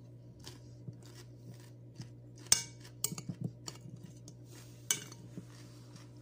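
Metal spoon clinking and scraping against a foil-covered plate of cucumber slices: scattered clicks, the sharpest a ringing clink about two and a half seconds in, with a cluster just after. A steady low hum lies underneath.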